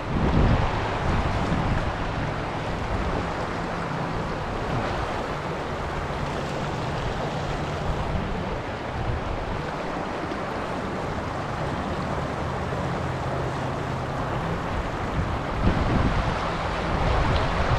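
Steady rush of a fast-flowing river, with wind gusts buffeting the microphone just after the start and again near the end.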